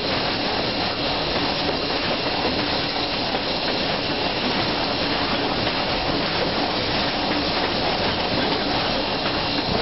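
Steam locomotive running along the track, heard from its cab: a steady mix of rolling rail noise and steam hiss.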